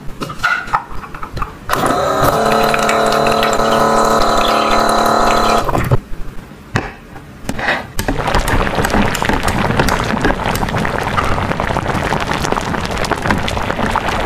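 A toy sink's small battery pump whirs steadily as water runs from its plastic faucet, stopping about two seconds before the halfway point. Then water sloshes and bubbles in a toy cooking pot with many small ticks of a plastic slotted spoon.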